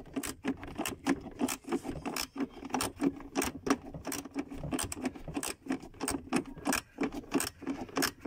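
Ratchet wrench clicking in quick, uneven runs as it is worked back and forth on a nut of the battery hold-down.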